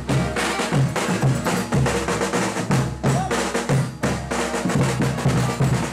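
Folia de reis band playing a chula: bass drum, caixa snare and tambourine beating a fast, driving rhythm, with other instruments sounding over it.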